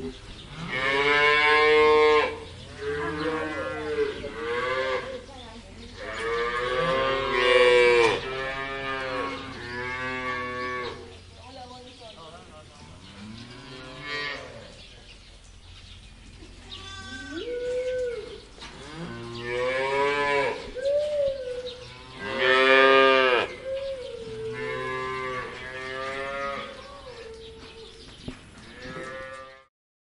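Holstein dairy cows mooing over and over: a series of long, pitched moos from several animals, one after another, some rising and falling in pitch.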